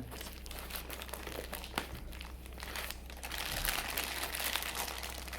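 Packaging crinkling and rustling as boxed ceiling-fan parts are unwrapped and handled, with scattered sharp ticks, growing denser about three seconds in, over a steady low hum.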